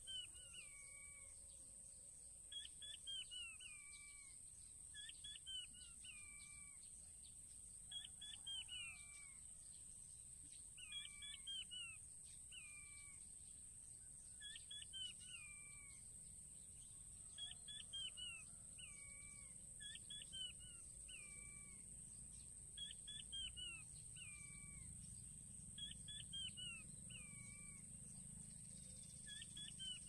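Faint, regular calling of a king quail (blue-breasted quail): a quick falling run of three or four thin whistled notes, repeated about every three seconds. A steady high-pitched hiss sits under the calls.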